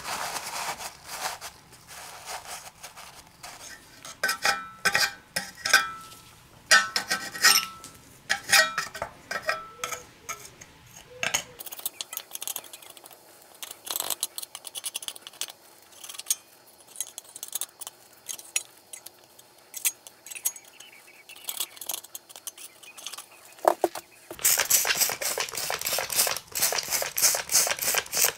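A metal screwdriver clinks and scrapes against a Briggs & Stratton engine block, with paper towel rustling as it is packed into the valve chamber. Sparse small clicks follow through the middle, then a few seconds of continuous hiss near the end.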